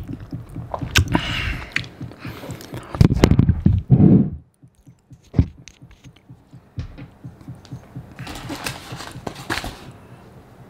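Microphone handling noise: a hand bumping and rubbing the shotgun mic, with heavy thumps and rustling for the first four seconds or so. Then a sharp click, and later small clicks and a rustling scrape as the cap of a small hot sauce bottle is twisted and worked open.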